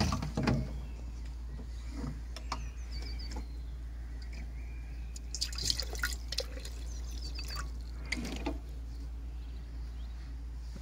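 Water trickling and dripping into a copper tank half full of water, the drips landing irregularly on the surface.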